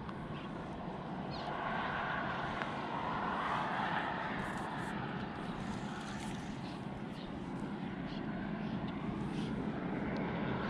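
Distant engine noise, a steady hum that swells about three to four seconds in, eases off, then rises again near the end.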